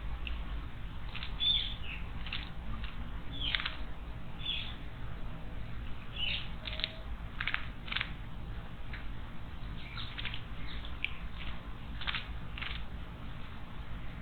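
Small songbirds giving many short, sharp chirps at irregular intervals, over a steady low rumble.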